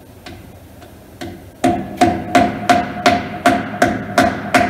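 A hammer tapping a 20-gram clip-on wheel weight onto the inner lip of an alloy wheel mounted on a wheel balancer. A few light taps, then from about a second and a half in a steady run of about nine sharp, ringing strikes, roughly three a second.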